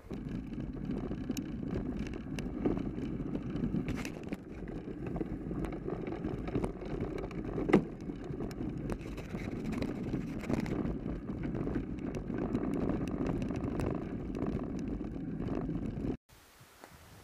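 Mountain bike rolling over packed snow: a steady crunching, rumbling tyre noise with frequent small rattles and clicks from the bike, and one sharp knock about eight seconds in. The noise cuts off suddenly about a second before the end, leaving a faint hiss.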